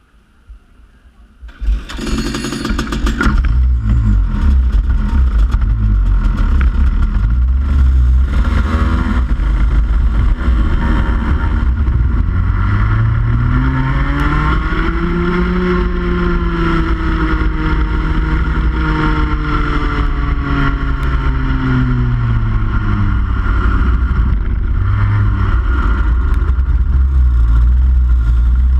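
Rotax 125cc two-stroke kart engine firing up about two seconds in, then running loud at racing speed, its pitch rising and falling with the revs.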